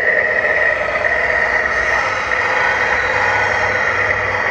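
A 1/14-scale radio-controlled Mercedes-Benz tractor truck running: a steady high whine over a low rumble that grows stronger about three seconds in.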